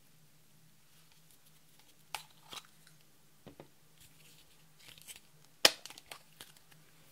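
A small clear plastic cup handled by hand, giving scattered crinkles and clicks of thin plastic, the loudest a sharp snap about three-quarters of the way through.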